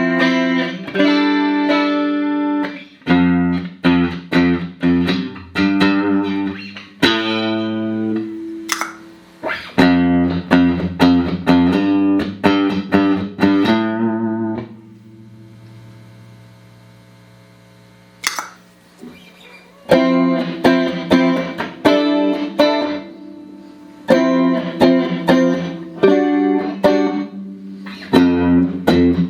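Clean electric guitar strumming chords through a Boss CE-5 Chorus Ensemble pedal into Roland JC-120 amps. The chords are strummed in a steady rhythm; about halfway through one chord is left to ring and fade for a few seconds before the strumming starts again.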